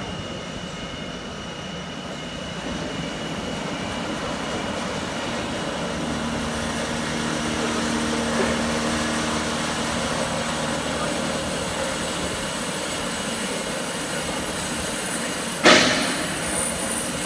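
Drill spindle on a CNC plasma table's drilling head running and drilling into a metal plate, a steady mechanical grind with a faint high whine. Near the end comes a single sharp metallic clank that rings briefly.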